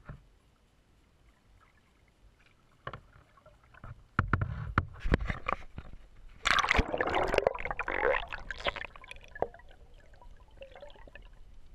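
Kayak paddling on open water: a few sharp knocks and low thumps about four seconds in, then about two seconds of loud water splashing that fades away.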